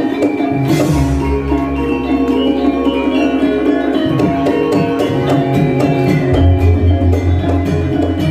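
Javanese gamelan playing: metallophones and gong-chimes ringing in a steady pattern with drum, and a deep gong sounding about a second in and again after about six seconds.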